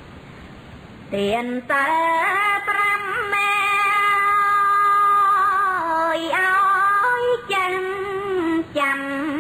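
Khmer smot, a Buddhist chant, sung by a solo woman's voice. It starts about a second in with long held notes, ornamented by slow wavers and slides, broken by short breaths.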